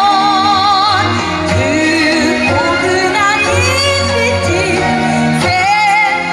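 A woman trained in traditional Korean singing sings a slow song into a microphone over instrumental accompaniment through the PA. She holds long notes with a wide vibrato.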